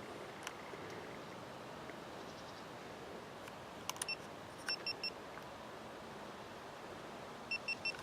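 An electronic device beeping in short, high, even-pitched beeps: one about four seconds in, a quick run of four right after, and another quick run near the end, with a few sharp clicks just before the first beep. Faint steady outdoor background throughout.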